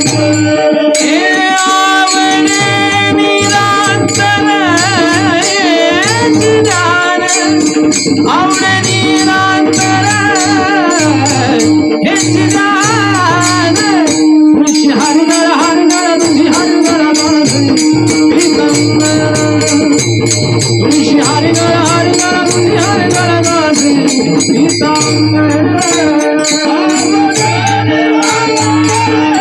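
Marathi devotional kirtan music: a singer draws out a long, ornamented melodic line over a steady drone, while rattling percussion keeps a fast, even beat.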